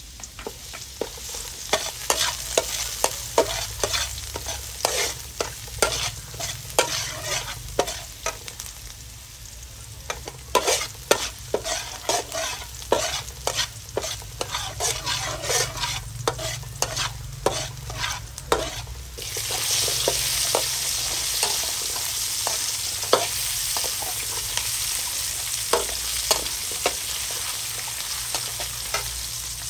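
Minced garlic frying in a steel wok, sizzling, while a metal wok spatula scrapes and taps against the pan in quick strokes. About two-thirds of the way through the sizzle suddenly gets louder and steadier, as whole shallots go into the wok, with occasional scrapes continuing.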